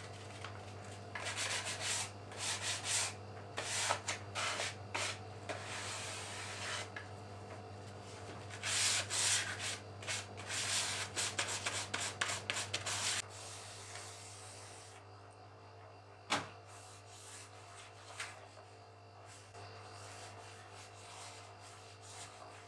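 Hand sanding a primed wooden drawer front with a 400-grit sanding block, in bursts of quick back-and-forth strokes, to smooth it between primer coats. The strokes stop a little past halfway, leaving fainter rubbing and one sharp knock.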